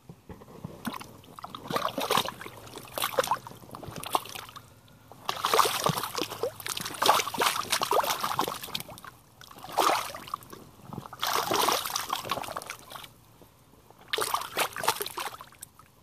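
Rubber boots wading and splashing through thin, liquid mud, in several spells of sloshing and splattering with short pauses between.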